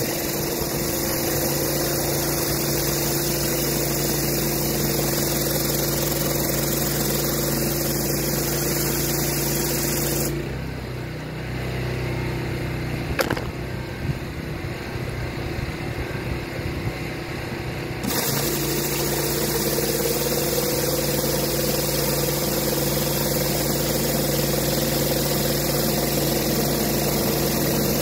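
Pressure washer engine running steadily under the hiss of water spray from a rotary flat surface cleaner working a rubber wet pour surface. About ten seconds in the spray hiss drops out for several seconds while the engine keeps running at a changed note, with a few clicks, then the spray comes back.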